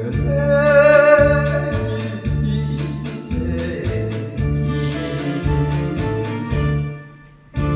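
A group of singers sings over a backing track with a steady beat and bass, holding a long wavering vibrato note about a second in. The music drops away briefly near the end.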